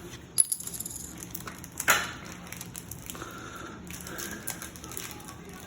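Foil booster-pack wrapper crinkling as it is worked and torn open, with a sharp crackle about half a second in and a louder tearing rip about two seconds in.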